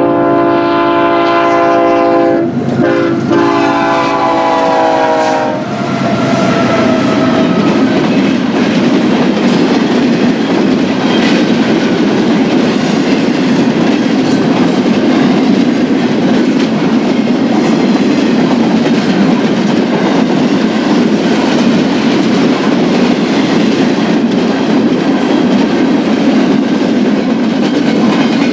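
A freight diesel locomotive's multi-chime air horn sounds a chord for about five seconds, with a short break partway. The train then rolls past: a steady rumble of wheels on rail with clickety-clack.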